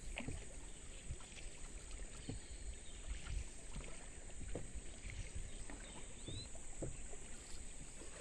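Floodwater sloshing and lapping around a small boat moving across a flooded river, with a steady low rumble and irregular low thumps of wind on the microphone.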